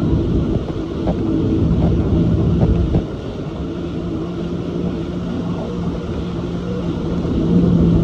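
Jet ski engine running under way with a steady hum, along with water rush and wind buffeting the microphone. The level drops a little about three seconds in and climbs again near the end.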